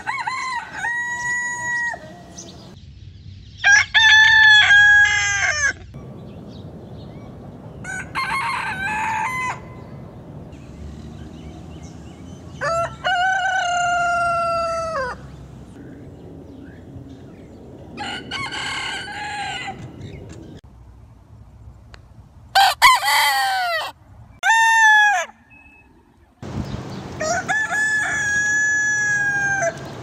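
Rooster crowing cock-a-doodle-doo, about eight crows a few seconds apart, each a one- to three-second pitched call with quieter background between them.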